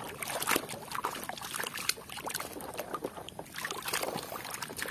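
Muddy water sloshing and splashing in a plastic basin as a hand swishes and scrubs a plastic toy helicopter through it, in quick, irregular splashes.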